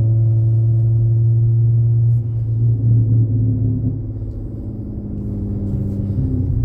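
Dodge Challenger's MagnaFlow Magnapack exhaust droning steadily at cruise, a deep even hum. It wavers about two seconds in and eases a little quieter from about four seconds in.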